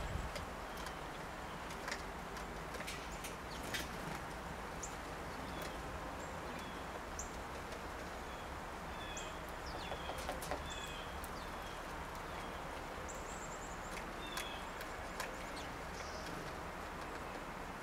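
A yellow-shafted northern flicker pecking at a wire suet cage, heard as scattered sharp taps. Short high bird chirps repeat through the middle, with a brief high trill a little after halfway, over a steady faint outdoor hiss.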